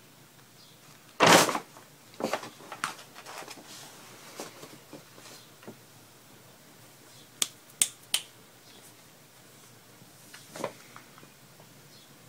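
Paper bag crinkling and rustling as a kitten paws at it and climbs inside. A loud crackling burst comes about a second in, followed by smaller scattered crinkles, then a few sharp crackles near the middle and one more later.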